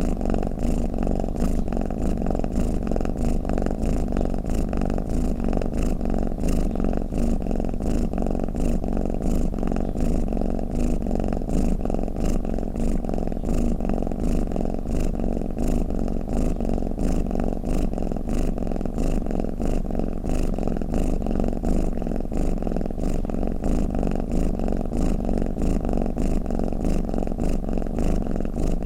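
Domestic cat purring steadily: a low, fast, even pulsing that goes on without a break.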